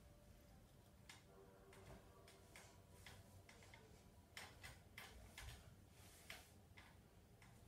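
Near silence: room tone with faint, irregularly spaced clicks and taps.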